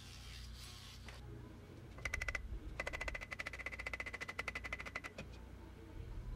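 Hand ratchet wrench clicking rapidly while a bolt is turned: a short burst of clicks about two seconds in, then a longer even run of about ten clicks a second that stops after a couple of seconds, each click with a slight metallic ring.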